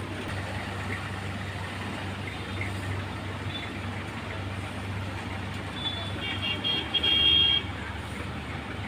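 Diesel engines of a tipper lorry and road-construction machinery running steadily as a low hum. About two-thirds of the way through comes a short, high toot from a vehicle horn, the loudest sound.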